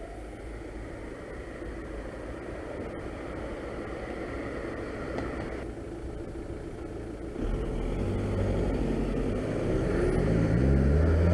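Car engine idling close by in waiting traffic, then a louder low engine sound from about two-thirds of the way through, rising in pitch near the end as a car accelerates away.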